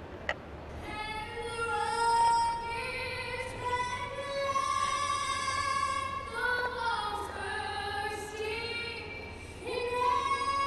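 A woman singing solo over a ballpark's public-address system in slow, long-held notes. She comes in about a second in, after a short click.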